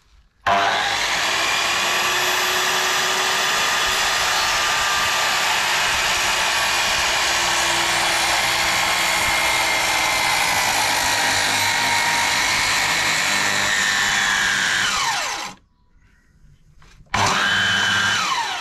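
Makita HS0600 270 mm circular saw cutting through a timber sleeper for about fifteen seconds, then winding down as he stops; after a short pause it is run again for about a second and winds down once more. The blade is binding as it nears the back edge of the cut.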